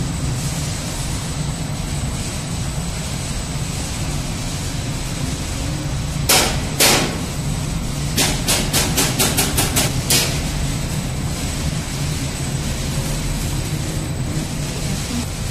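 Industrial machinery running with a steady hum and a faint high whine. A little past six seconds in come two loud sharp knocks, then a quick run of about ten clacks, roughly five a second, for about two seconds.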